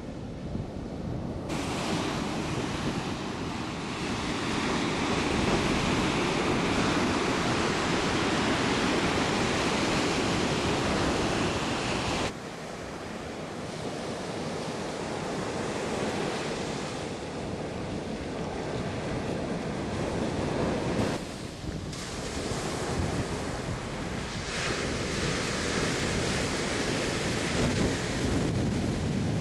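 Ocean surf breaking and washing up a beach, with wind buffeting the microphone. The steady rush jumps in level abruptly a few times.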